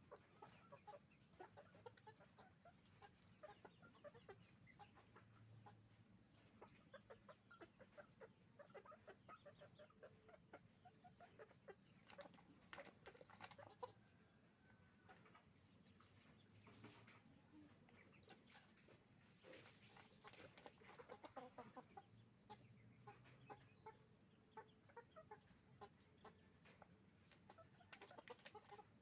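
A flock of chickens clucking, many short overlapping calls that keep up steadily and quietly, with a few louder, sharper flurries along the way.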